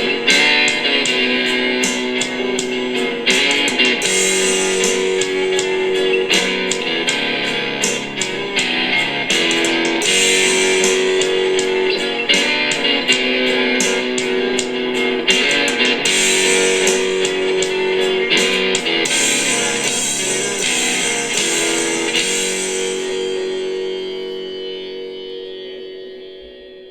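Rock'n'roll music led by electric guitar, with held notes and rhythmic strokes, fading out over the last few seconds.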